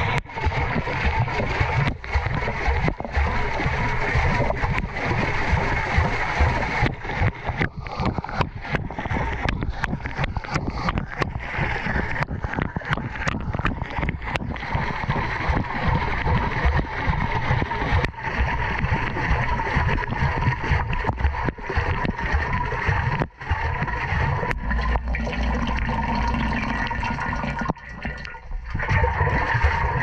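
Soapy water sloshing and splashing around a load of laundry as a front-loading washing machine's drum tumbles during the wash, heard from inside the drum.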